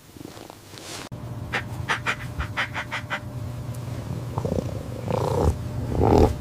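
Kitten purring steadily, with a quick run of short high-pitched mews a little over a second in and louder mewing near the end.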